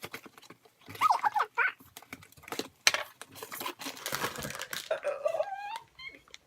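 Packaging crinkling, rustling and tearing as a parcel of squishy toys is unwrapped by hand, in many short clicks and rustles. Brief high, wavering vocal sounds are heard about a second in and again around five seconds in.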